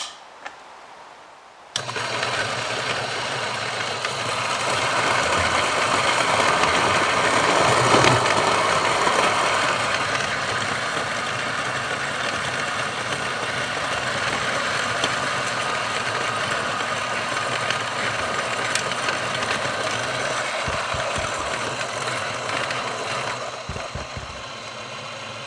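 Niche Zero conical-burr coffee grinder grinding a single dose of espresso beans: a motor hum with a coarse grinding rasp that starts suddenly, runs steadily, then thins and quietens near the end as the last beans pass through. A few low knocks come near the end, from tapping the grinder to clear the remaining beans.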